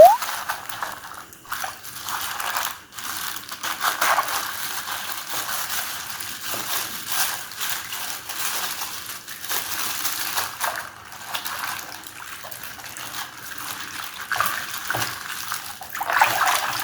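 Slime being squeezed, stretched and squished by hand, making uneven wet squelching and sloshing sounds that come in swells.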